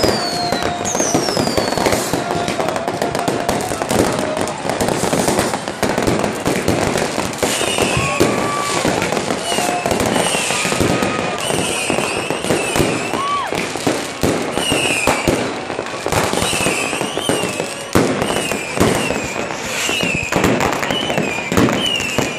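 Dense fireworks and firecrackers going off at close range: a continuous barrage of bangs and crackling. Repeated high whistles glide up and down in pitch through the barrage.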